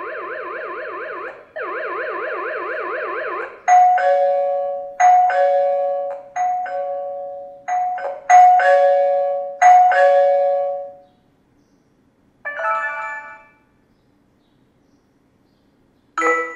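Xiaomi smart home gateway's speaker playing its preview sounds while the volume levels are set: a warbling alarm siren in two bursts, then a two-note ding-dong doorbell chime about seven times, a short chime tune, and a single chime near the end.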